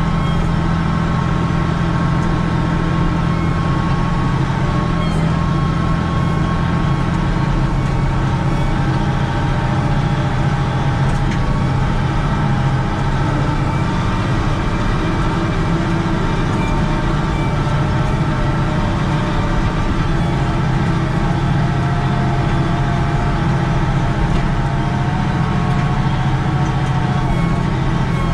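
Volvo 4400 wheel loader's diesel engine running steadily, heard from inside the cab, as the loader pushes snow with its 12-foot blade.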